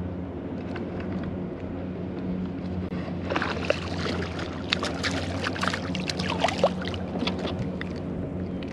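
A steady low motor hum throughout, with a run of sharp, irregular clicks and knocks starting about three seconds in.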